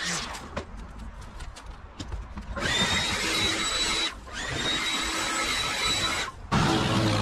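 Leaf blower running at speed and blowing grass clippings off the paving, a steady rushing noise with a high, even whine. It starts about two and a half seconds in, after a quieter stretch of scattered ticks, and dips briefly twice.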